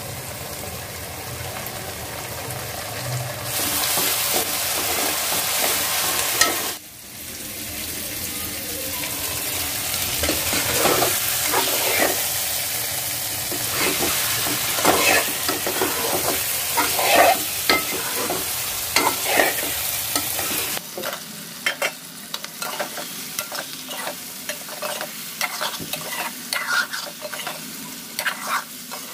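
Onion-tomato masala sizzling in a frying pan as ginger-garlic-green chilli paste goes in, then chicken curry frying while a spatula stirs it. In the last several seconds the spatula knocks and scrapes against the pan in quick short clicks.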